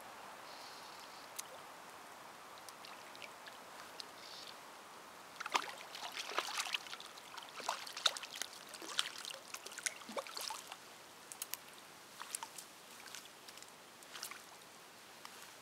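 Light, irregular splashing and crackling at the water's edge, densest from about five to eleven seconds in, with a few scattered clicks after.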